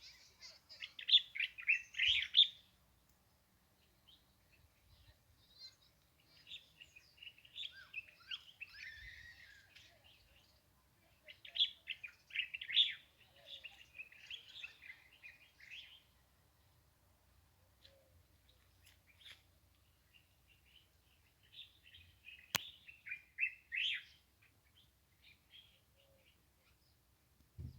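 Small birds chirping and twittering in bouts of a few seconds, with quiet gaps between. A single sharp click sounds about two-thirds of the way through.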